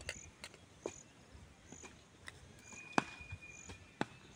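A few sharp knocks, the loudest about three seconds in, over a faint high insect chirp repeating about once a second.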